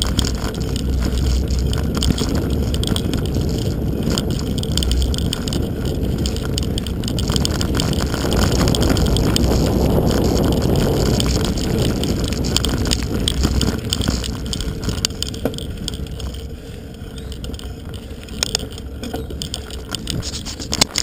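Mountain bike ridden along a dirt singletrack: tyres rolling over dirt, with rattles and knocks from the bike and wind rumbling on the camera's microphone. It is loudest about ten seconds in, eases off after about fourteen seconds, and there is a sharp knock near the end.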